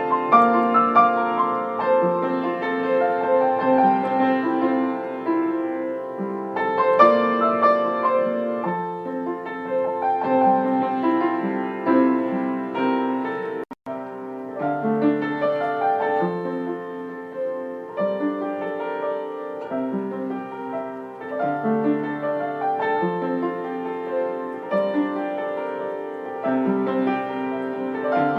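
Instrumental piano music: a melody over repeating chords, with a momentary dropout about halfway through.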